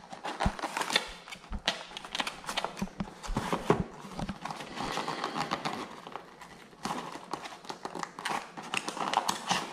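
Small cardboard box being handled and opened by hand: irregular taps, knocks and scrapes as the cardboard is gripped, set down and its end flaps are pried open.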